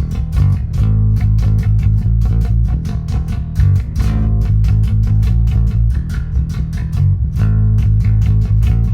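Warwick Vampyre SN-5 five-string electric bass played through a Neural DSP Quad Cortex amp modeller on its neck pickup: a busy line of quickly plucked, deep notes.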